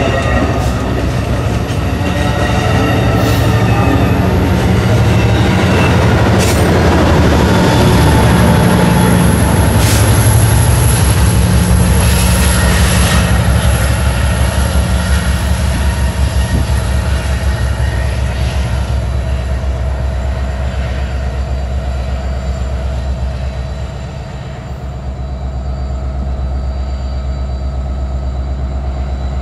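Amtrak Pacific Surfliner train passing and pulling away: bilevel cars rolling by with a few wheel knocks over rail joints and a thin high wheel squeal, over the low drone of its F59PHI diesel locomotive. About two-thirds of the way through it settles to a quieter, steady diesel rumble.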